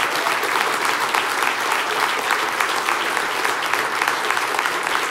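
An audience applauding after a song: dense, steady clapping.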